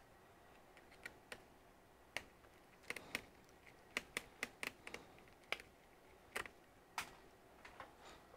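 Quiet, irregular light clicks and taps, about seventeen of them and busiest around the middle, from gloved hands working at the laptop's hinge edge, handling the display cables and small plastic and metal parts.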